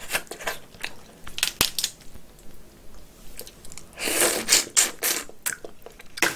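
Close-miked wet chewing and mouth clicks as cooked snow crab is eaten. A louder stretch of crackling and squishing comes about four seconds in, as the crab body with its innards is handled at the mouth.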